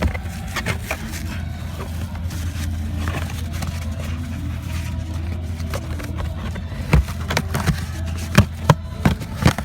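Plastic interior trim cover being handled and pushed into place. Its tabs go in with several sharp clicks and knocks in the last few seconds, over a steady low hum.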